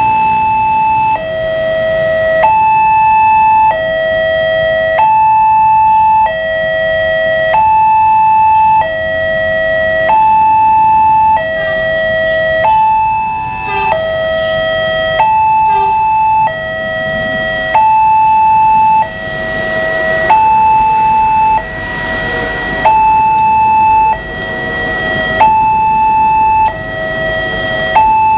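Railway level-crossing warning alarm sounding its two-tone signal, a higher and a lower electronic tone taking turns about every 1.3 seconds, which warns that a train is coming. In the second half the noise of the approaching train grows louder underneath it.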